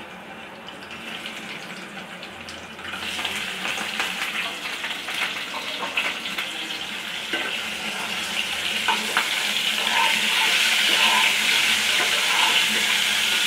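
Boiled eggs frying in hot oil in a kadai, sizzling and spattering. The sizzle starts faint and grows louder from about three seconds in, as more eggs go into the oil.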